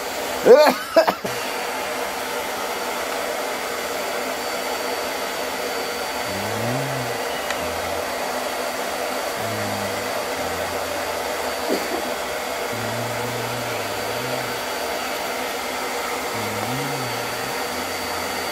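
Steady whooshing noise of a fan or blower running, like a hair dryer. A short loud sound with a wavering pitch comes about half a second in, and faint low notes come and go from about six seconds in.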